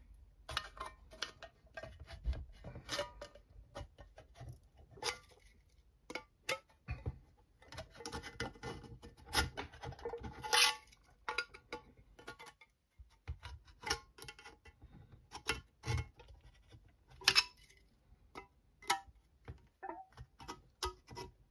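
A screwdriver poked into the punched holes around the top of an empty steel tin can and twisted to widen them: irregular metal clicks and scrapes of the thin can metal, some louder snaps among them.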